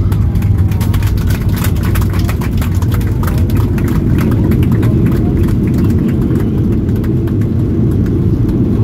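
Cabin noise of a Boeing 737-800 rolling out on the runway just after touchdown, ground spoilers up: a deep, steady rumble with rapid rattling clicks that thin out after about four seconds.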